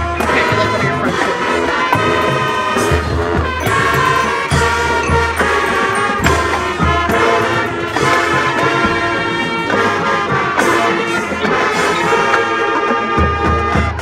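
High school marching band playing a brass-led jazz arrangement, loud and continuous, with a deep low part that comes and goes.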